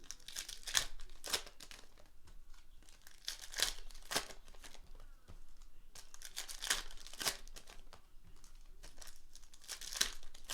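Foil trading-card pack wrappers being torn open and crinkled, in a string of short, irregular crackling rustles.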